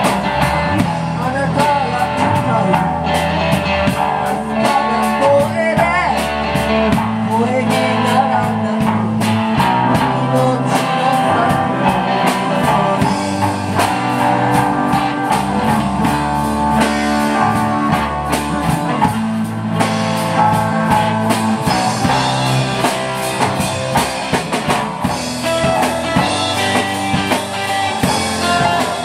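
Live rock band playing: amplified electric guitars over a drum kit keeping a steady beat, with a man's voice singing in parts.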